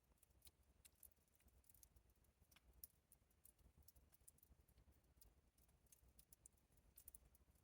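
Water seeping from rock and falling in droplets: faint, irregular small ticks and patters, with one sharper drip about three seconds in.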